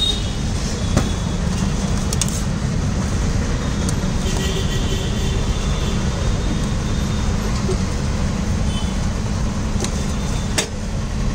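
Steady low rumble of street traffic, with two sharp clicks: one about a second in and one near the end.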